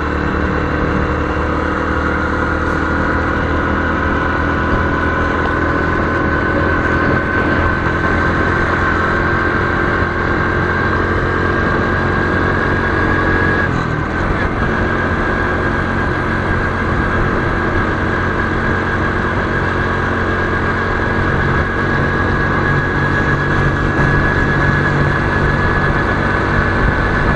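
Motorcycle engine running steadily at cruising speed, heard from the rider's helmet camera with road and wind noise. Its note climbs slowly, with a brief break about halfway through.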